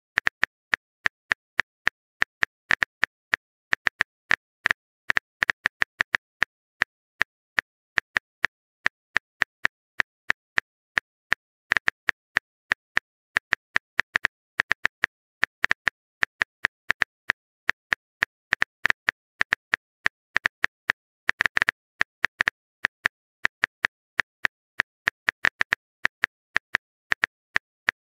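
Phone keyboard typing clicks: short sharp taps in an irregular run of a few a second, sometimes bunched together, as a text message is typed out.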